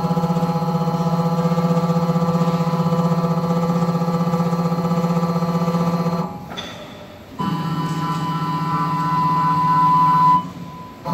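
Mini CNC wood lathe's electric motors running with a steady pitched hum. The hum cuts out about six seconds in and starts again a second later, now with a higher whine that grows louder until it stops shortly before the end.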